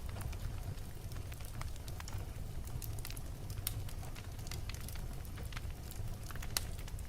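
Wood fire burning in a fireplace: a steady low rumble of flames with irregular sharp crackles and pops, the loudest pops about three and a half seconds in and near the end.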